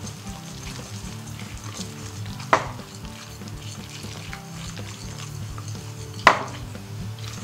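Wire whisk stirring a thick flour-and-beer batter in a glass bowl, with two sharp clinks of the whisk against the glass, about two and a half and six seconds in.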